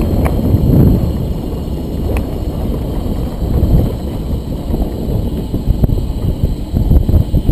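Wind buffeting the microphone: a loud, uneven low rumble with no clear engine tone.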